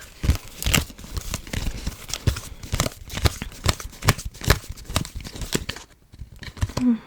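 Close-miked Uno playing cards being flicked and slid against one another while searching through the deck: a rapid, irregular run of crisp clicks and papery rustles that thins out near the end.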